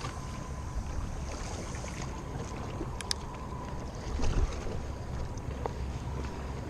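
Waterside ambience: a steady low rumble with wind on the microphone, and a couple of sharp clicks about three seconds in.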